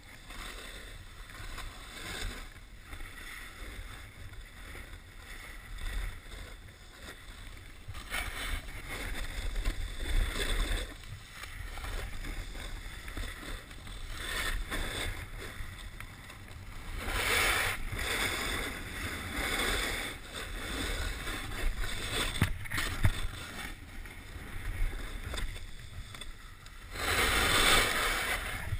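Snowboard sliding and carving on packed snow, its edges scraping with a hiss that swells several times in the turns and is loudest near the end. Wind rumbles on the microphone throughout.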